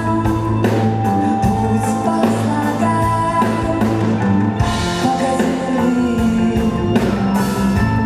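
Live rock band with a string section playing a song: drum kit keeping a steady beat under electric guitar, violins and cello, with a woman singing the lead vocal.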